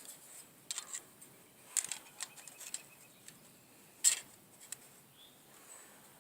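A few light clicks and taps of toy figures being handled and moved, with a sharper knock about four seconds in.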